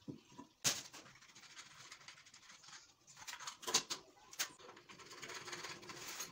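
Knocks, clicks and scraping of a ceramic wash basin being set on its wall mounting, then a tap being fitted into it and fastened from underneath. The three sharpest knocks come about a second in and around the middle.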